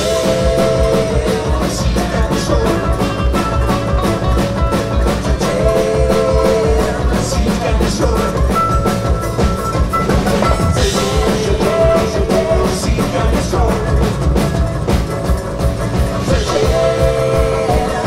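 Live band playing a heavy-metal song on bluegrass instruments: strummed acoustic guitar, picked banjo and upright double bass over a steady driving beat, with singing.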